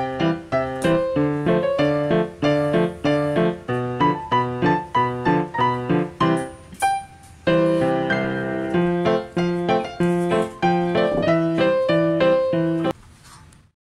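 Background piano music: a light melody of short, evenly paced notes over chords, about two notes a second, which stops about a second before the end.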